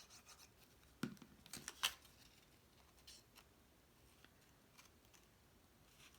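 Quiet handling of cardstock: a few faint taps and scrapes about a second in, then near silence.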